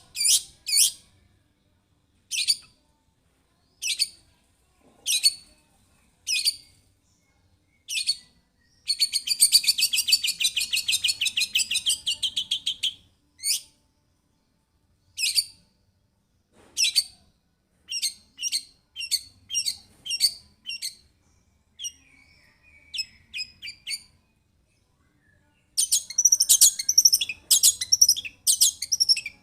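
Long-tailed shrike (cendet) singing: sharp, high single call notes spaced about a second apart, then a fast chattering trill lasting some four seconds. Later come quicker runs of notes and a dense chatter near the end.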